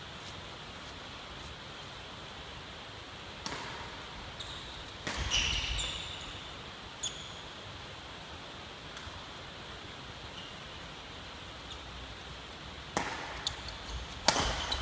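Badminton racket striking a shuttlecock, two sharp hits near the end that ring in a large wooden sports hall, with short squeaks of court shoes on the floor about five seconds in, over a steady faint hiss.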